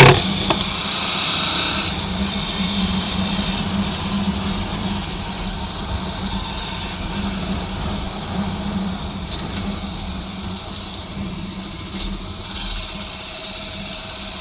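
Motorcycle engine running steadily at low revs, slowly getting a little quieter, with a short loud thump right at the start.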